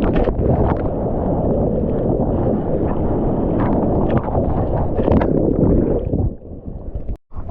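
Surf water rushing and splashing over a GoPro in its waterproof housing, with wind buffeting the microphone, as a bodyboarder rides the waves. A little after six seconds the sound turns muffled and cuts out for a moment near the end.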